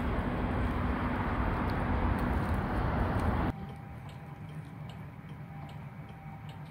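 Outdoor street and wind noise on a phone microphone, cut off suddenly about three and a half seconds in. Then a quiet car cabin with a turn-signal indicator ticking evenly, a little under twice a second.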